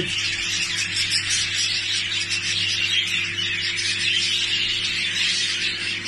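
Many budgerigars in an aviary chattering and warbling together in a dense, continuous, high-pitched din, over a steady low hum.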